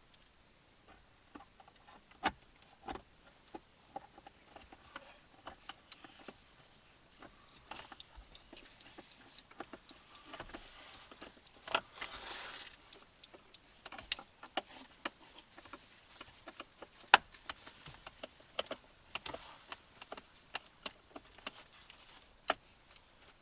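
Irregular small clicks and taps of a screwdriver and plastic mount parts being worked while a dash mount is screwed into place, with a short rustle about twelve seconds in.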